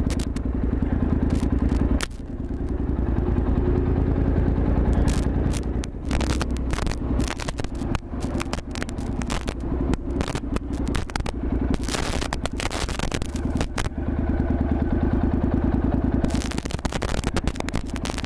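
Motorcycle engine running steadily with a fast, even firing pulse, dipping in level about two seconds in. Gusts of wind noise on a helmet-mounted microphone crackle over it through much of the second half.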